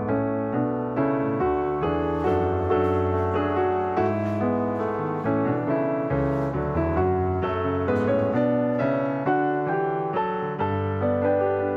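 Background piano music, with notes struck at an even pace, each dying away.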